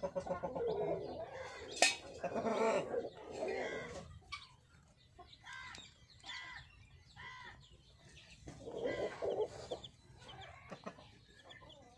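Sussex hen clucking low over her newly hatched chicks, which peep in short high calls. The hen's clucking is densest in the first few seconds and comes back about nine seconds in. One sharp click sounds just before two seconds in.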